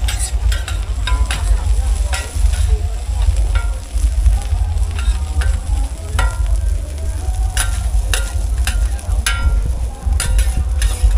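Food frying and sizzling in a pan while a metal spatula stirs it, with many irregular sharp clinks of metal on metal that ring briefly. A heavy steady low rumble runs underneath.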